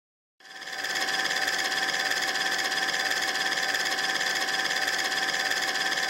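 Logo-intro sound effect: a steady mechanical whir that fades in about half a second in and then holds level.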